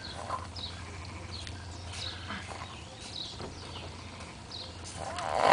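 Short high chirps of birds over a steady low hum, then near the end a man's loud snore swells up.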